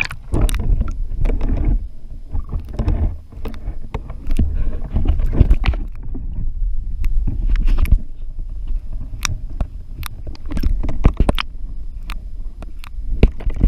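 Lake water sloshing and gurgling around a camera held at and below the surface, heard muffled, with a steady low rumble and many irregular sharp clicks and knocks, as a hand moves a bass through the water.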